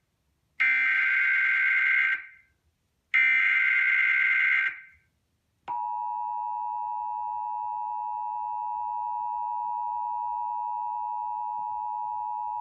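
Emergency Alert System activation: the last two of the three SAME header data bursts, each about a second and a half of rasping digital tones, then, about six seconds in, the steady two-tone EAS attention signal begins, announcing a flash flood warning.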